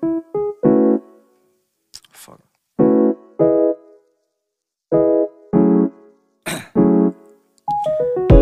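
Piano music in short snippets, each a second or less, that start and stop abruptly with silent gaps between.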